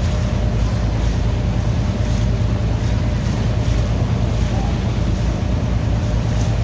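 A boat's engine running steadily under way, with wind buffeting the microphone and water rushing past the hull.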